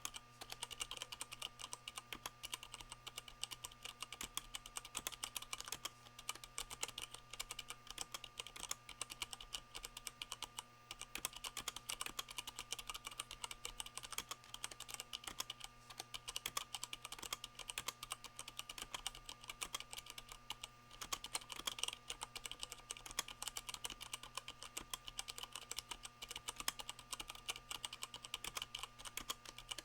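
Continuous fast typing on a Leopold FC660M 65% mechanical keyboard with Cherry MX Brown switches fitted with rubber O-rings, giving a dense run of keystroke clicks.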